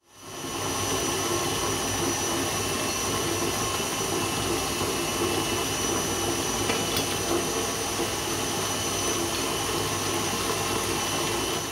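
Electric stand mixer running steadily, its motor whining as the beater mixes cake batter in a stainless steel bowl.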